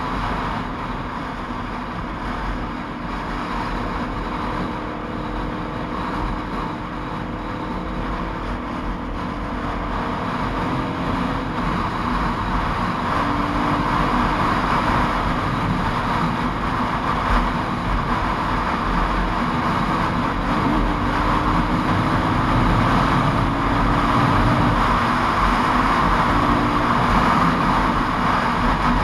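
Motorcycle riding at road speed: steady wind noise over the camera, with the bike's engine running underneath and its pitch shifting a little with the throttle. The wind grows louder through the second half.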